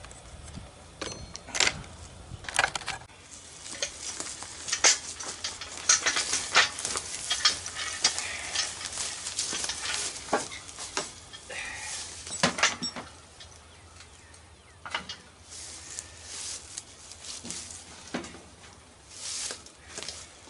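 Irregular metallic clinks, knocks and scraping of hand tools and metal parts being handled on a riding mower, busiest in the first half and sparser toward the end.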